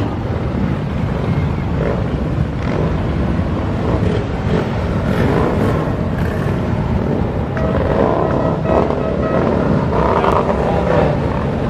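A large group of motorcycles riding past, many engines running together in a loud, steady rumble.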